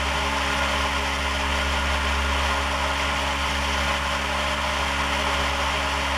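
Cessna 172 Skyhawk's piston engine and propeller droning steadily in cruise, heard inside the cabin.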